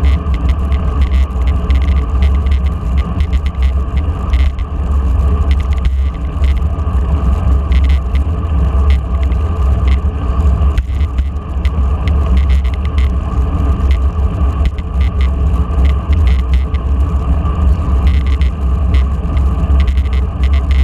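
Steady low wind rumble on the microphone of a camera riding on a road bicycle, with road noise from the tyres and frequent small clicks and rattles.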